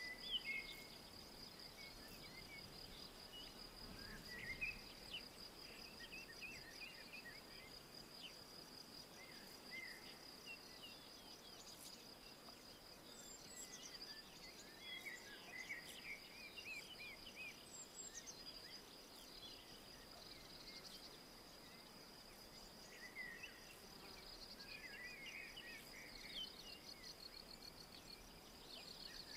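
Faint woodland ambience: a steady, rapidly pulsing high-pitched insect trill, with songbirds chirping in short scattered phrases.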